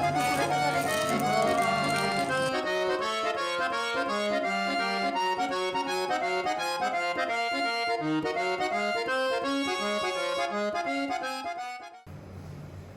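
Background music: a lively melody of quick, evenly paced notes, which stops about a second before the end and gives way to a quieter low steady hum.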